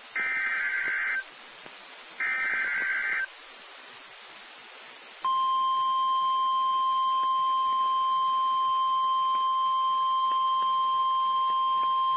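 NOAA Weather Radio Emergency Alert System signal: two roughly one-second bursts of the SAME digital header, a buzzy two-tone data signal, about a second apart. About five seconds in, the 1050 Hz warning alarm tone starts and holds steady, the signal that a tornado warning is about to be read.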